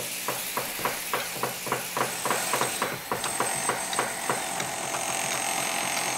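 Rapid, even clicking, about five clicks a second, over a steady hiss. The clicks thin out near the end, and a faint high steady tone comes in about two seconds in.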